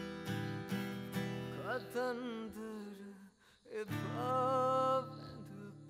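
Acoustic guitar played with picked and strummed chords while a man sings. The sound drops away briefly a little past three seconds in, then comes back with a loud held note that wavers in pitch.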